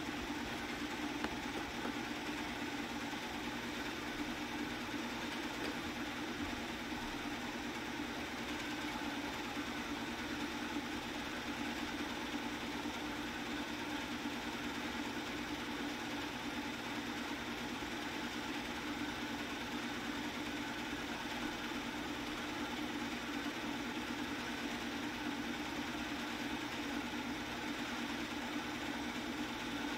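Film projector running with a steady mechanical hum.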